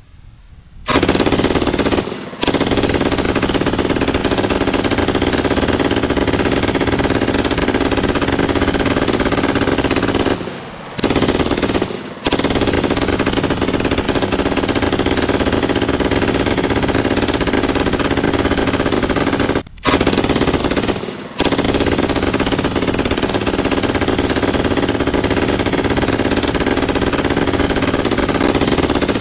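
German MG34 machine gun firing long bursts of automatic fire, slowed to half speed. The fire starts about a second in and runs almost without a break, with a short pause near the start, a longer one about a third of the way through and two brief ones past the middle.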